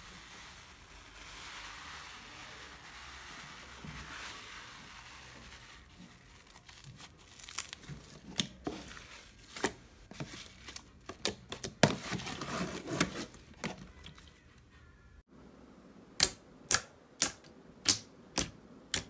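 Slime being stretched and squeezed by hand: a soft, steady crackle at first, then irregular sharp clicks and pops as the slime is pulled and folded. Near the end, a regular run of sharp pops comes as fingers poke into thick white slime.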